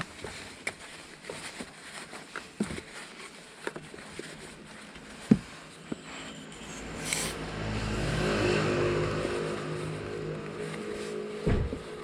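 Scattered light clicks and knocks. About halfway through, a car engine's sound swells and fades over a few seconds. A thump comes near the end.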